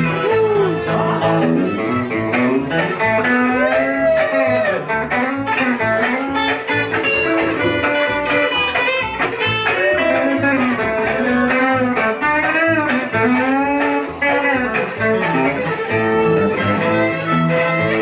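Live band playing an upbeat tune on electric guitar, fiddle and upright bass, with a steady beat and sliding melody lines.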